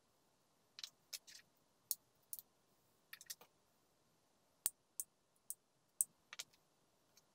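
Small hand tools clicking and scraping against the metal pump head of a dish soap dispenser being repaired. About a dozen sharp, irregular clicks come at uneven intervals, a few of them drawn out into short scrapes.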